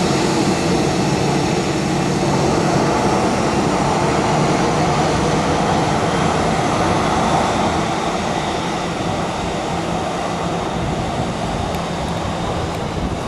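Boeing 737-800's CFM56 turbofan jet engines running loud and steady, a dense rushing noise that eases off a little over the last few seconds.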